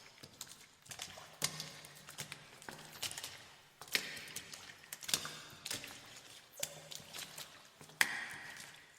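Footsteps walking through water, each step a wet splash and slosh, at an uneven pace of about one step a second, with the sharpest splash near the end.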